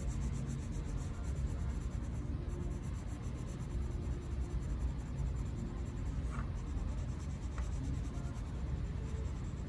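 Green colored pencil shading on paper with light, circular strokes: a steady, scratchy rubbing of the pencil tip on the page.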